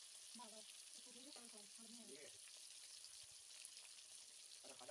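Fish steaks shallow-frying in oil in an aluminium kadai: a faint, steady sizzle with small crackles.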